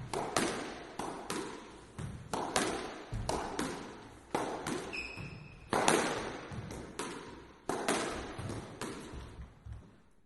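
Squash ball being hit by one player in a court: sharp, echoing cracks of racket on ball and ball on wall, often in quick pairs, about one to two a second. A brief squeak comes about five seconds in.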